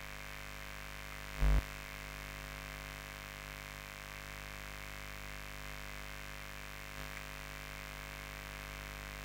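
Steady mains hum and hiss of the recording chain, with one short low thump about a second and a half in.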